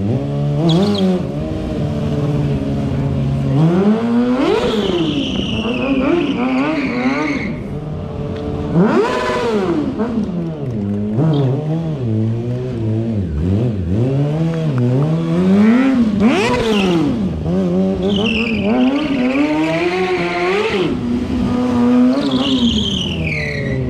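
Stunt sport motorcycle engine revving hard, its pitch rising and falling again and again as the rider works the throttle, with the rear tyre squealing several times as it slides on the pavement.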